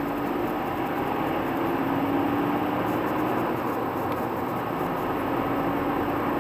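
Running noise of a car heard from inside its cabin while driving: a steady rush of engine and tyre noise, with a faint hum that climbs slightly in pitch as the car gathers speed.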